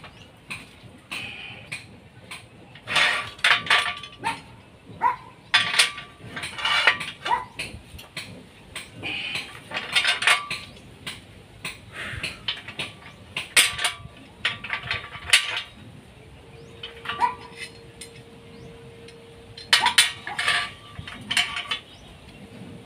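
Steel reinforcing bars being worked by hand, clinking and clanking together in short bursts every second or two, each knock with a brief metallic ring.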